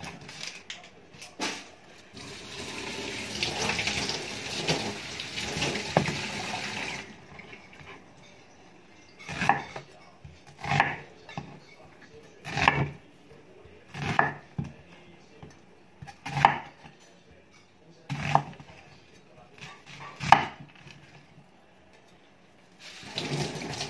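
A kitchen knife chopping a white onion on a wooden cutting board: seven slow, separate cuts, one every second and a half to two seconds, each ending in a knock on the board. Before the cutting there are about five seconds of steady hiss.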